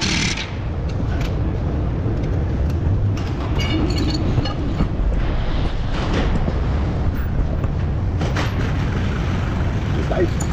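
Steady low workshop rumble with a few light metallic clinks and taps.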